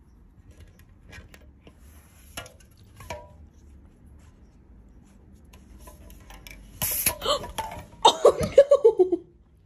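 Faint light taps as a cat noses aluminium soda cans over, then a sudden noisy burst about seven seconds in. Near the end a person laughs loudly in a quick run of laughs falling in pitch.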